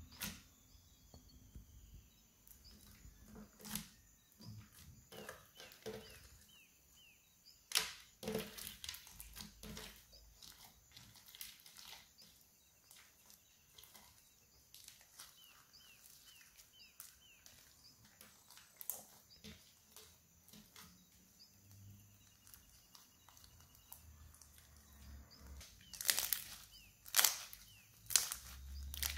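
Silver glitter slime studded with small beads being pressed and kneaded by hand: scattered sticky clicks and small pops, coming thicker and louder near the end as it is squeezed.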